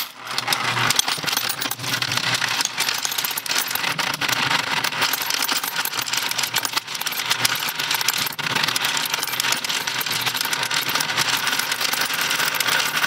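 Royal Sovereign FS-500 electric coin sorter running with a full hopper: a dense, continuous clatter of coins rattling through the sorting track and dropping into the coin tubes, over the low hum of its motor.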